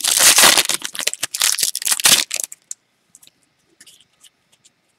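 Foil wrapper of a football trading card pack being torn open and crinkled for about two and a half seconds, followed by a few faint ticks as the stack of cards is handled.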